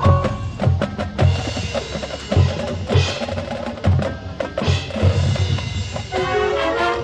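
High school marching band music in a percussion-led passage: bass drums and snare drums hitting in rhythm with sharp wood-block-like strikes, melodic notes coming back in near the end.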